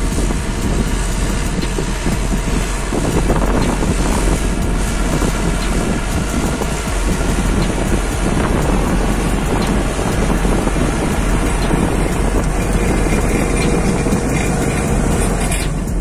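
Hattat 398 tractor's diesel engine running steadily under load while pulling a mounted plough through the soil.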